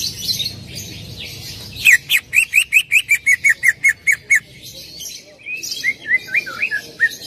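Leafbird (cucak ijo) song, used as a trigger call to set other cucak ijo singing. About two seconds in comes a fast run of short, clipped rising notes, about six a second. After a brief pause it goes into a looser string of slurred whistles.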